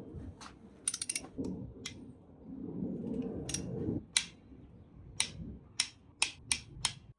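Hand ratchet clicking as the cam cap bolts on a Honda K24 engine are cracked loose. There is a quick run of clicks about a second in, then single sharp clicks every half second or so toward the end, with a low rumble in the middle.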